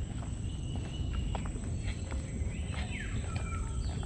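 Several wild birds calling: short whistled notes and a few quick falling calls, over a steady high-pitched insect drone.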